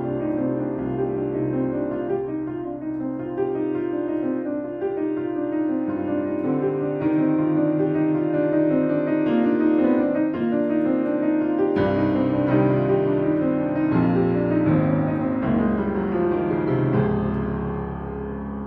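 Piano music, notes and chords moving on without a break.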